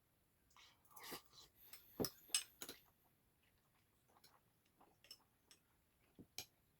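Eating sounds played at double speed: a cluster of sharp clicks from utensils against a bowl, loudest about two seconds in, then faint scattered clicks and chewing.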